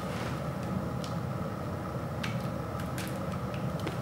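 Utility knife slitting the shrink-wrap on a vinyl record sleeve: a soft scrape near the start, then a few faint light ticks of plastic wrap and card being handled.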